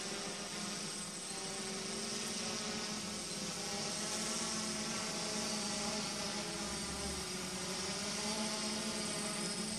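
DJI F550 hexacopter's six motors and propellers buzzing in flight, a steady hum that wavers slightly in pitch and grows a little louder toward the end.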